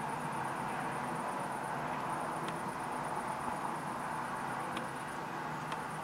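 Steady outdoor background noise, with a fast, high, evenly pulsing trill and a few faint ticks.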